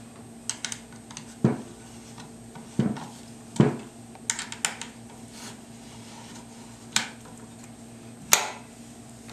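Irregular sharp clicks and knocks of a screwdriver and rifle stock parts being handled while the side-panel screws are tightened, with a few louder knocks about three and a half seconds in and near the end.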